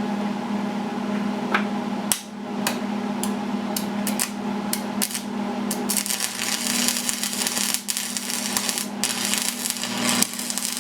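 Electric welder tacking steel rods to a flat steel bar: a string of short, sharp arc snaps in the first half, then longer runs of steady crackling from about six seconds on, over a steady hum.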